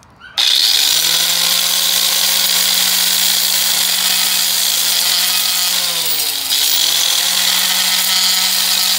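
A SHALL 4-1/2 inch electric angle grinder with a flap disc switches on, spins up with a rising whine, and grinds the top of a concrete block with a steady motor tone under a loud abrasive hiss. About six seconds in the motor pitch dips briefly, then recovers.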